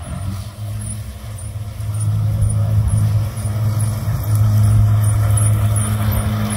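Electric ride-on mower running with its blades at low speed: a steady low hum that grows louder as the mower comes closer.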